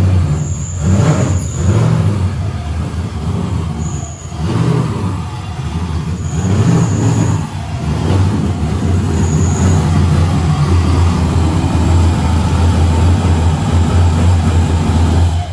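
V8 engine of a BMW E46 drift car idling and pulling at low speed as the car creeps forward, a deep steady exhaust note. A few short high squeaks sound over it.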